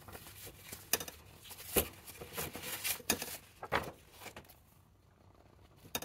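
Paper journal pages and a strip of lace being handled: scattered soft rustles and light taps at irregular spacing. They die away after about four and a half seconds, with one more tap near the end.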